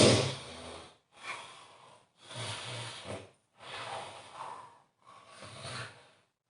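A person snoring heavily, a run of snorting breaths with a low rattling buzz, about one a second. The first one is the loudest, and short silent gaps fall between them.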